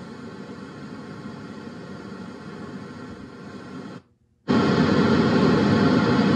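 Radio static from the Polaris Ranger's newly installed overhead speakers: a steady hiss that cuts out about four seconds in and comes back much louder half a second later.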